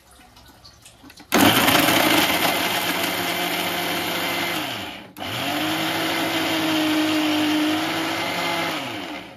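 Electric mixer grinder (mixie) running in two bursts of about four seconds each, its motor starting abruptly and winding down at the end of each run.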